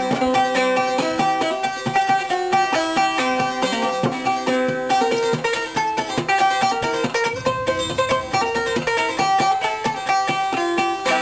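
Music: a five-string banjo played clawhammer style, a quick, steady run of plucked notes.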